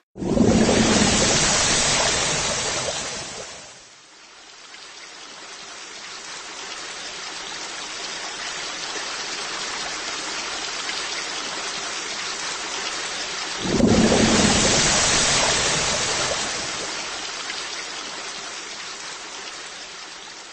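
Fight-scene sound effects: two sudden crashing blasts about thirteen seconds apart, each dying away over a few seconds, with a steady rain-like hiss between them.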